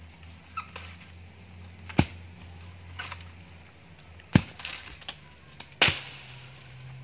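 Sharp knocks: three loud ones about two, four and a half and six seconds in, with a few fainter knocks between, over a steady low hum.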